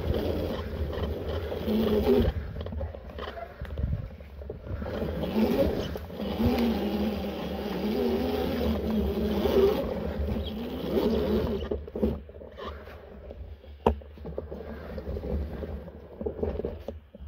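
1500 W e-bike ridden off-road: a wavering motor whine that rises and falls in pitch over heavy wind rumble on the microphone, with a few sharp knocks near the end as the sound thins out.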